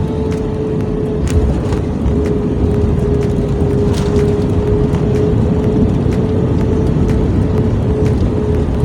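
Airliner cabin noise: the jet engines' steady whine over a dense low rumble, with scattered light clicks and rattles.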